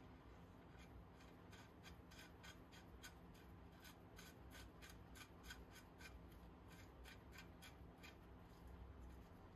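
Faint, quick metallic clicks, about four or five a second, as gloved fingers spin a small steel nut down a bolt on a trolley jack's bracket; the clicking stops about eight seconds in.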